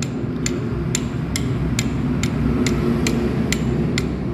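Light hammer tapping on metal, evenly paced at a little over two strikes a second, each tap ringing sharply, over a low steady hum.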